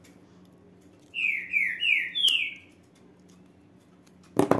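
A bird chirps four times in quick succession, each a short note sliding downward. Near the end come two sharp clicks from a flint lighter being struck to seal the cut end of a ribbon.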